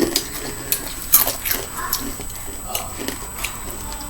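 Takis rolled tortilla chips being crunched and chewed: an irregular run of sharp crackles, loudest about a second in.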